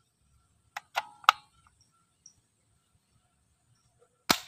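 Plastic clicks and taps from a toy ball gun being handled: three close together about a second in, then a single sharper click near the end.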